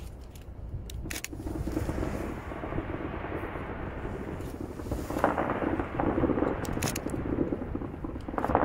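Fireworks going off about 500 m away: low booms that rumble and echo, with a few sharp cracks. The sound swells louder about five seconds in and again near the end.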